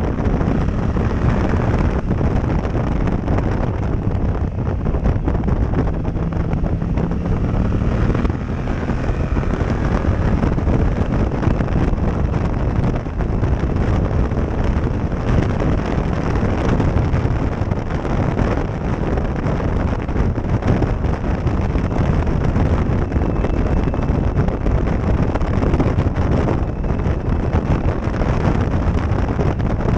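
Heavy wind buffeting on a helmet-mounted action camera's microphone at riding speed, with the motorcycle's engine faintly audible beneath it.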